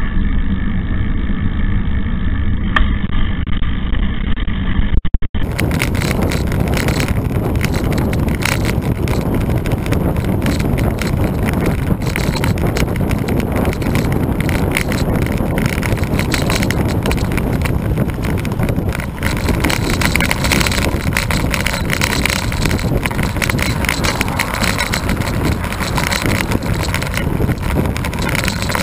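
Steady rushing wind and tyre noise from a road bike riding on asphalt, heard through a bike-mounted camera's microphone. About five seconds in the sound changes abruptly from a duller, muffled rush to a brighter, fuller one.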